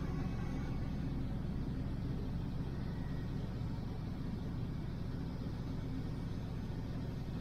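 1968 Chevelle Nomad wagon driving slowly, its engine running steadily as a low drone heard from inside the car.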